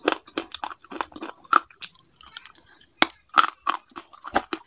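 Brittle slate pencil pieces crunching close to the microphone: a quick, irregular run of sharp, dry crunches and cracks.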